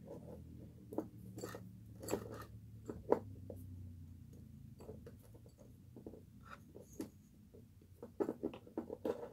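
Soft irregular clicks, ticks and scratching of thin craft wire and beads being handled as the wire is wrapped around a glass bottle neck. A faint low hum lies under the first few seconds.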